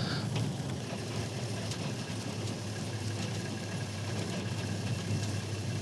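A vehicle's engine running steadily at low revs, a constant low hum.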